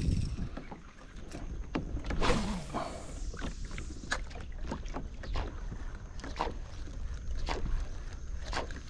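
Fishing kayak on the water: irregular small splashes and knocks against the hull, with a steady low rumble and a louder wash of water about two seconds in.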